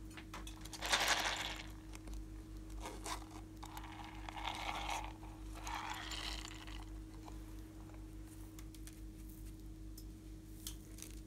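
Hands working slime and its ingredients: a few short bursts of scraping and crinkling, the loudest about a second in and others between about three and seven seconds, then only light clicks, over a faint steady hum.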